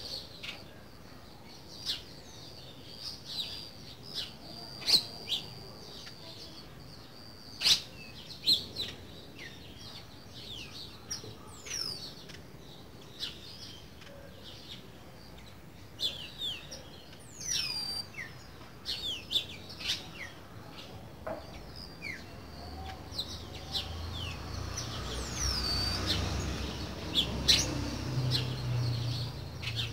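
Green-winged saltator (trinca-ferro) calling in its cage: scattered short sharp chirps and a few falling whistled notes with pauses between them. A low rumble swells over the last several seconds.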